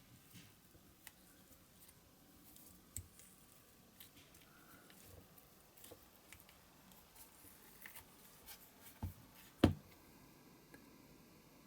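Faint scattered clicks and ticks of small tools and parts being handled at a workbench, with two sharper knocks about nine seconds in, the second the loudest.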